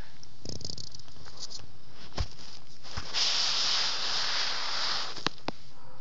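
A kitten hisses for about two seconds in the middle, with a few sharp taps before and after it.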